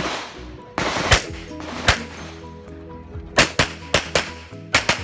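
A string of handgun shots, about seven, several coming in quick succession in the second half, over background music.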